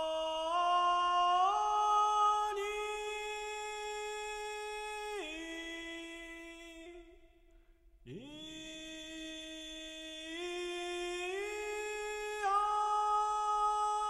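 A single voice chanting in long held notes, each breath stepping upward in pitch. The first phrase slides down and fades about seven seconds in; after a short pause a second phrase swoops up about eight seconds in and climbs in steps again.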